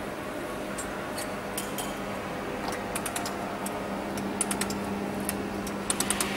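Laser welding machine running with a steady hum, while sharp, light clicks and ticks come at irregular intervals, with a quick cluster near the end, from work on a thin stainless steel letter piece under the welding head.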